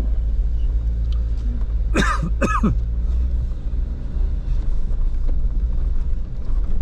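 Steady low rumble of a Jeep driving slowly over a trail, heard from inside the cab. About two seconds in, a person coughs twice, half a second apart.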